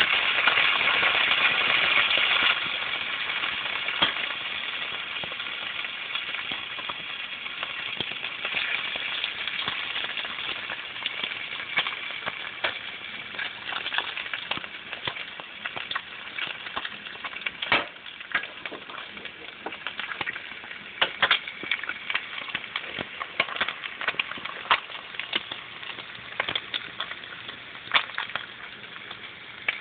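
Strips of bacon frying in a pan of hot fat: a steady sizzle with many scattered sharp pops and crackles. The sizzle is loudest for the first couple of seconds, then settles a little lower.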